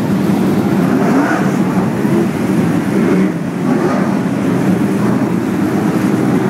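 A field of winged sprint cars' V8 engines running together as the cars circle the dirt oval, loud and steady.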